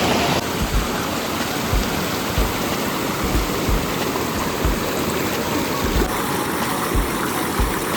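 Steady rush of running water, like a mountain stream or spout, with faint dull low bumps now and then.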